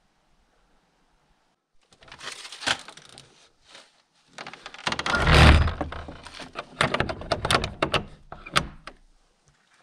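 Old wooden hut door pushed shut, scraping and then closing with a heavy thud about five seconds in, followed by a run of sharp metallic clicks and scrapes as its iron sliding bolt is worked into place.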